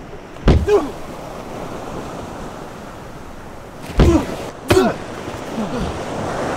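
Three hard hits in a fistfight, each followed by a man's short, falling grunt, over a steady wash of ocean surf; a last grunt comes near the end.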